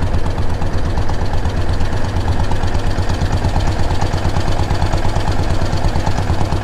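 Motorboat engine running steadily, a fast low throb.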